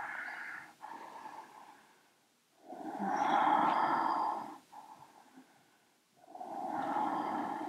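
A woman taking slow, deep audible breaths: two full breaths a few seconds apart, with quiet gaps between.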